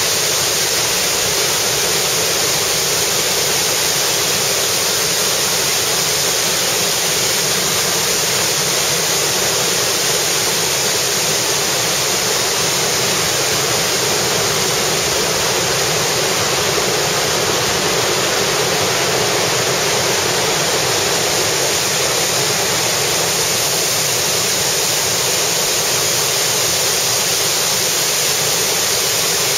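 Large waterfall plunging into its pool at close range: a steady, loud rush of falling water, unchanging throughout.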